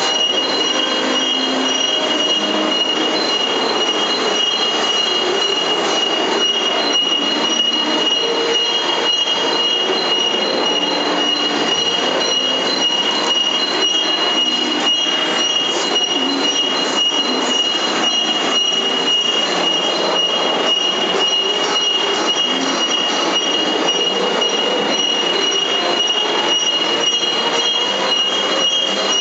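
Metal ware degreasing washing line running: a steady high whine with several ringing tones over constant, dense metallic rattling from its machinery.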